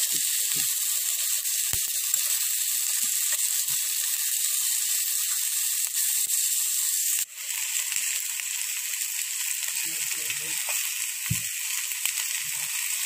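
Sliced onions sizzling steadily in hot mustard oil in a kadai, with a brief break about seven seconds in. A few soft knocks of the metal spatula stirring them come near the end.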